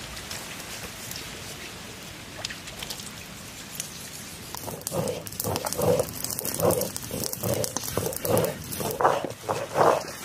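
Stone roller rolled back and forth on a flat grinding stone (ammi kal), crushing wet yellow spice paste. From about four and a half seconds in it sets up a rhythm of grinding strokes, about one and a half a second.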